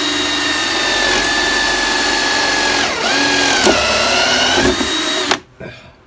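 Ryobi hand drill running at speed in a homemade drill press, boring a hole in a piece of scrap wood. Its pitch dips about three seconds in as the bit bites into the wood, then picks up again, and the drill stops about a second before the end.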